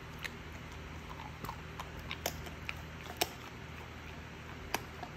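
Border collie chewing a piece of meat jerky: irregular sharp crunching clicks, about eight of them, over a faint steady low hum.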